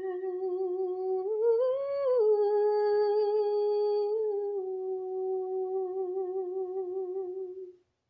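A solo voice humming a wordless melody a cappella, with vibrato. It climbs briefly about a second in, then settles onto a long held final note that fades out shortly before the end.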